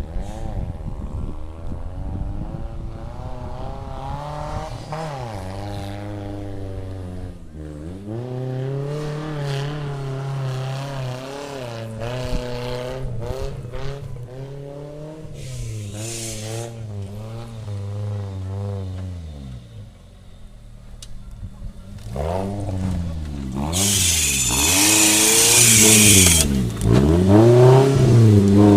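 Off-road 4x4 engine under load, its revs rising and falling over and over as it works along a rough trail. Near the end a loud rushing, hissing noise rises over the engine for about two seconds.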